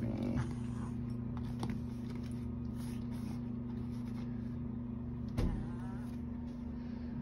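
Steady low electrical hum, with a single thump about five seconds in while a cat is handled out of a soft fabric carrier.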